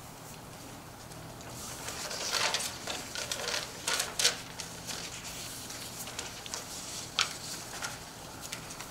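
Rustling and handling noise with several sharp clicks, starting about a second and a half in, over a faint steady low hum.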